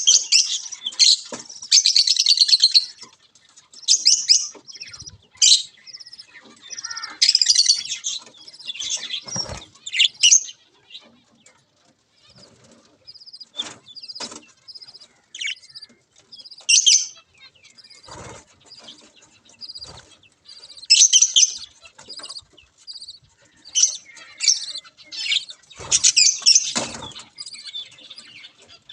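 Budgerigars, a mother and her chicks, giving rapid, raspy high-pitched chirps in bursts: the chicks' begging calls at feeding. A few short knocks or wing flutters come in between.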